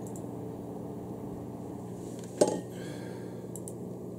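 Steady low hum of a desktop computer tower running, with one sharp knock about two and a half seconds in and a couple of faint clicks near the end.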